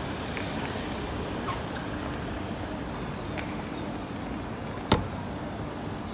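Steady city street traffic noise, with a single sharp knock about five seconds in.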